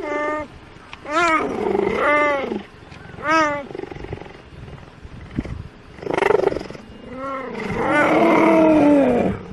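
A cheetah calling: about half a dozen short pitched calls, each rising then falling in pitch, with a longer drawn-out call near the end.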